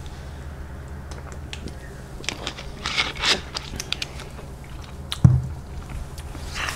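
Close handling sounds: scattered rustles, crackles and clicks, with one sharp thump about five seconds in, over a steady low hum.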